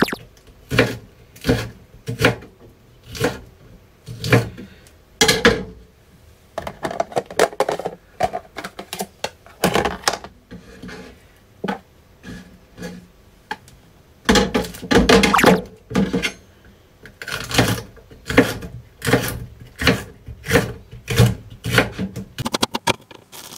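Kitchen knife chopping a green bell pepper on a cutting board: irregular sharp knocks of the blade on the board, about one or two a second, with a few longer noisier stretches in between.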